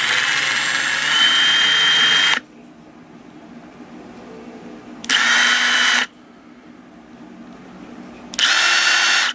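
Milwaukee M18 FUEL 2857 cordless impact driver run free with nothing in its collet, a high steady motor whine on three trigger pulls. The first run lasts about two seconds and steps up in pitch about a second in; two shorter runs of about a second each follow.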